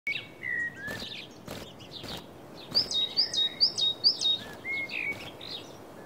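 Coal tit singing: thin high calls, then a quick run of five repeated high notes about three a second in the middle, with a few sharp clicks and faint outdoor hiss behind.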